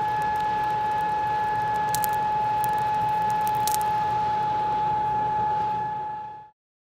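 Coal forge fire burning with air forced through it: a steady whining hum over a rush of air, with a few sharp crackles from the burning coals. It fades out and stops about six and a half seconds in.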